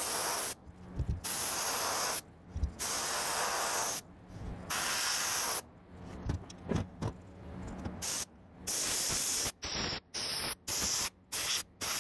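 Compressed-air siphon-feed spray gun spraying contact glue in a string of hissing bursts that start and stop abruptly, about a second each at first and shorter and quicker near the end, with a few knocks between bursts.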